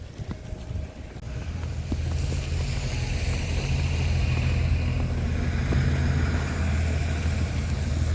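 A motor vehicle's engine running close by: a low hum comes up over the first two seconds, then holds steady.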